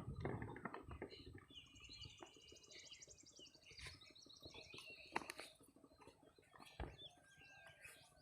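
Faint bird chirps and calls, with a few soft clicks.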